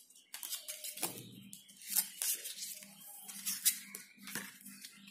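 Plastic playing cards clicking, snapping and sliding against each other as packets of the deck are cut and flourished by hand, in a scattering of light, irregular clicks and short rustles.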